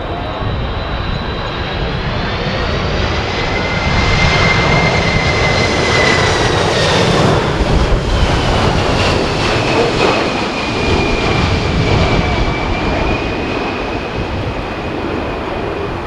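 Boeing 767-300ER airliner passing low overhead on final approach: its twin turbofan engines' rumble and high whine swell as it nears and grow loudest about halfway through, then the whine slides down in pitch as it goes past. Strong gusty wind buffets the microphone.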